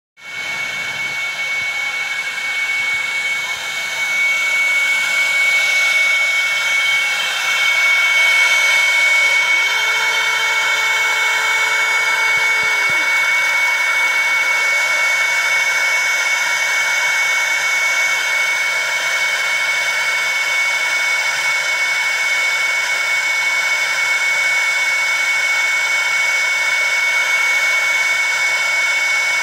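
DM 50+ laser engraving machine running while it engraves a steel firearm receiver: a steady rushing whir with a constant high whine over it. A lower tone comes in about ten seconds in and stops about three seconds later.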